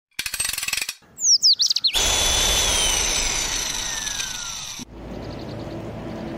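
Logo-intro sound effects: a rapid buzzing rattle, then a quick run of falling chirpy whistles, then a long whooshing sweep with slowly falling tones that cuts off sharply. After the cut, a low steady outdoor rumble.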